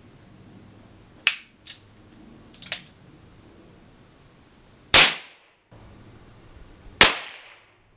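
Humbert Safegom 11.6 mm primer-powered rubber-ball defence revolver being fired. Three short sharp clicks in the first three seconds are followed by two loud shots about two seconds apart, each with a ringing tail. The string includes chambers that fail to fire.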